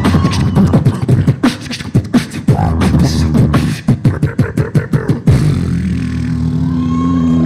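Two beatboxers performing a duet through microphones: fast vocal kick drums, snares and clicks in a dense beat. The beat stops about five seconds in and gives way to a steady low drone.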